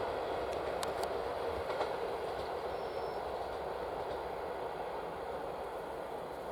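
Double-deck passenger train rolling on the rails: a steady wheel-and-track rumble with a few sharp clicks in the first two seconds, slowly fading as the train moves off.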